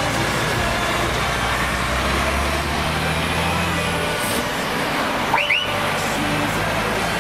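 DAF XF truck's diesel engine running as the tractor unit pulls its trailer past at low speed, a steady low rumble. About five seconds in, a brief double squeak cuts through.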